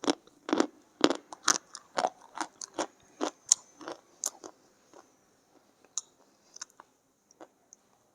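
Biting and chewing white khadi, a chalky edible clay, in the mouth. Sharp crunches come about two to three a second, then after about four seconds they thin out to a few faint clicks as the clay turns creamy and sticky.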